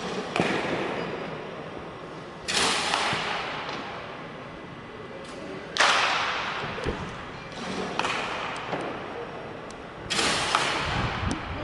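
Batting practice against a pitching machine: four sharp knocks from the machine's pitches and bat meeting ball, spaced two to four seconds apart, each ringing on in a large indoor hall.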